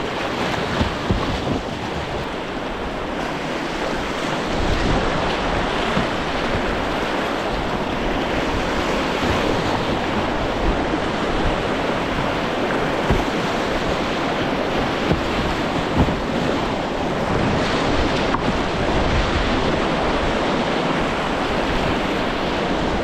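Whitewater rapids rushing steadily around a moving kayak, with wind buffeting the microphone.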